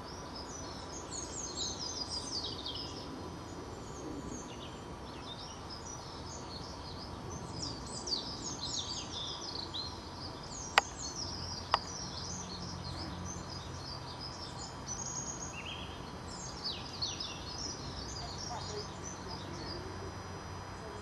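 Birds singing, with clusters of quick high chirps coming and going, over a steady outdoor background. From about halfway a low steady engine hum from the excavators working in the cutting comes in. Just before it, two sharp clicks sound about a second apart.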